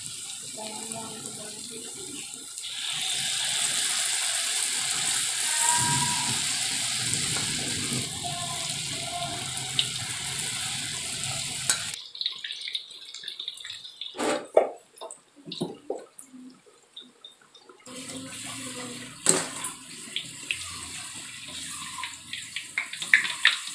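Bakwan, Indonesian vegetable fritters, deep-frying in hot oil in a wok: a steady sizzle. About twelve seconds in it drops to a quieter stretch with a few knocks, then the sizzle returns, with the clinks of a spatula and a wire strainer lifting the fritters near the end.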